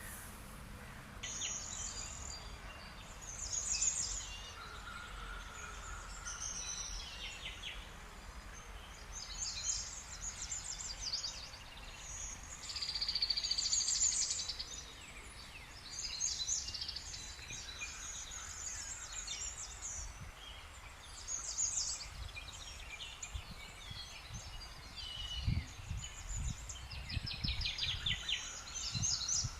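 Small songbirds singing and chirping in short repeated phrases over a steady low outdoor rumble, with a few low thuds near the end.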